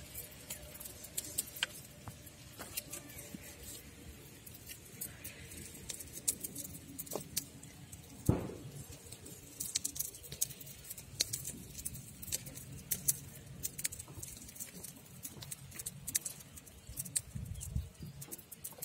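Meat cleaver clicking and tapping against a wooden log while pork skin and fat are sliced by hand, with one louder knock about eight seconds in.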